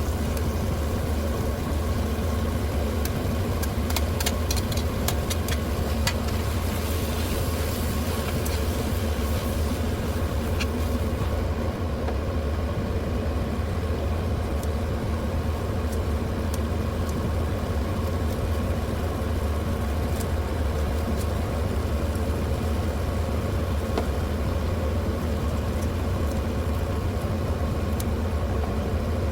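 Steady low engine and road drone heard from inside a car, with a few faint clicks in the first third.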